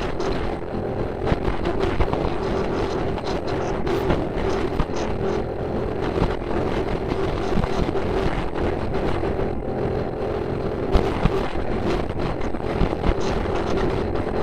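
A steady, loud droning noise with a constant hum running through it.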